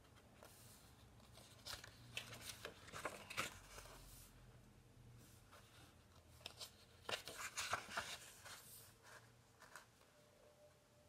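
Coloring-book paper pages rustling and crinkling as they are turned over by hand, in two spells of rustling about two seconds in and again around seven seconds in.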